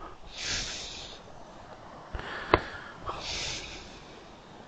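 A man breathes out hard through his nose twice, about three seconds apart. Between the two breaths there is one sharp click.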